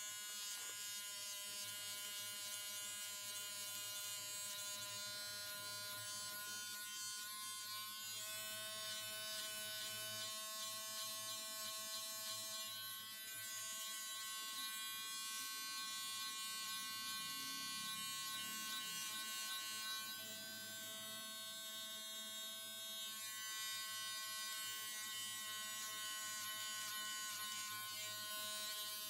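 Electric hair clipper running with a steady buzz while trimming the hair at the sides of the head.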